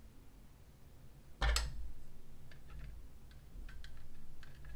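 A plastic miniature and its plastic base being handled: one sharp plastic click about a second and a half in, with a dull handling rumble under it, then a scatter of light ticks and taps as the model is settled on the base.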